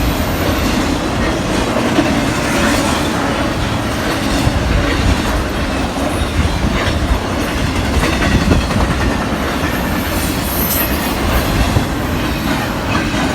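Intermodal freight train cars rolling past close by: a steady loud rumble of wheels on rail, with clicking and clacking of the wheels over the track.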